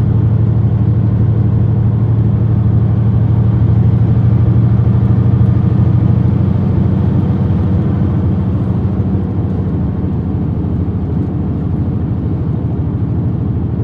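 Semi-truck diesel engine and tyre noise at highway speed, heard inside the cab as a steady low drone. It eases off slightly about eight seconds in.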